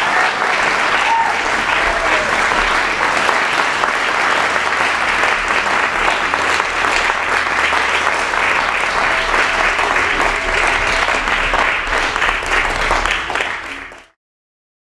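Audience applauding steadily. The clapping fades near the end and cuts off to silence.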